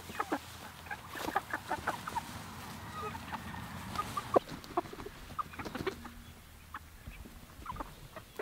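A flock of young red broiler chickens clucking and peeping in short, irregular calls.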